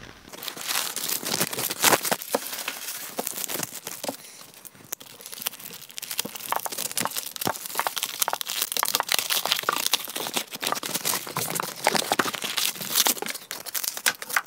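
Packing paper rustling and crinkling in irregular crackles as supplies are unwrapped from a cardboard shipping box, with the wrapping cut and torn open with a pocket knife.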